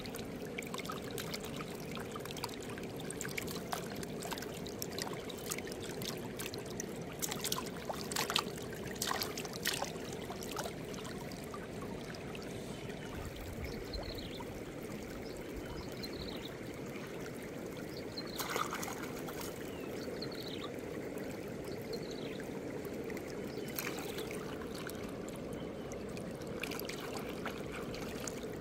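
Shallow stream water flowing steadily over rocks, with a few sharp splashes and knocks now and then, several of them close together about a third of the way in.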